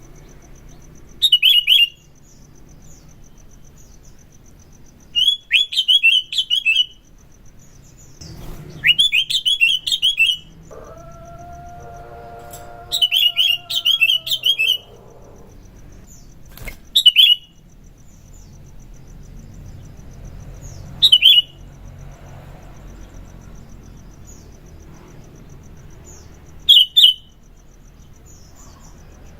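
Sooty-headed bulbul (kutilang) singing in short loud bursts of sharp chirping phrases, about eight bursts with pauses between them. A faint steady high trill runs underneath, and a lower held tone sounds for about two seconds around eleven seconds in.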